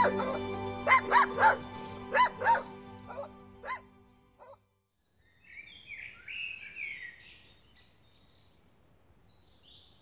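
A dog barking, about seven short barks in the first four seconds, over a steady background music bed that stops about four and a half seconds in. After a short silence, birds chirp and sing in the background.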